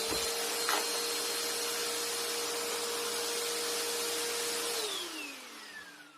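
Upright vacuum cleaner running with a steady motor whine and rush of air, then switched off about five seconds in, its motor winding down with a falling whine.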